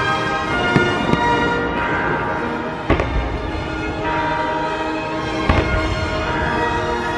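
Fireworks bursting overhead, several sharp bangs, the strongest about three seconds in, over music with long held notes.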